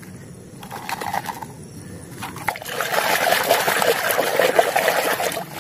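Water sloshing and splashing as a hand scrubs a plastic toy in a basin of muddy, foamy water. It starts light, with a few clicks of plastic being handled, and gets louder about two and a half seconds in.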